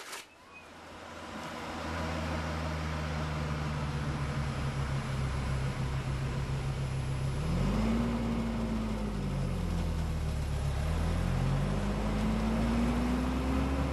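Motor vehicle engine and road noise heard from inside the cabin while driving, fading in over the first two seconds. The engine note climbs and drops twice: once about halfway through, and again near the end.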